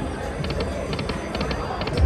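Slot machine game sounds: electronic music with short, quick ticks recurring every few tenths of a second, over a low casino background rumble.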